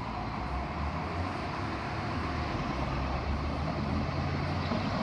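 Road traffic: a motor vehicle's engine running steadily low, growing a little louder about two seconds in, over general street noise.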